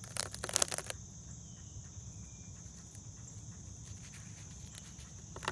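Insects trilling steadily in the background, with a short burst of crackling and rustling in the first second as fingers pull at the egg sac and the tough web holding it.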